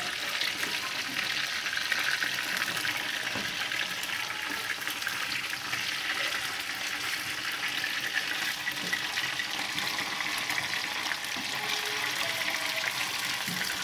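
Batter-coated chicken pieces deep-frying in hot oil: a steady sizzle with fine crackling.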